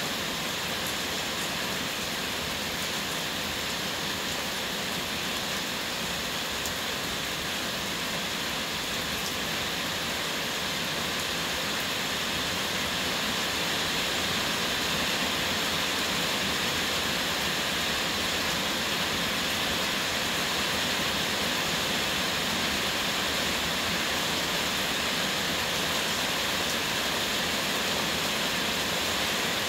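Heavy rain falling in a steady hiss, growing a little louder about halfway through.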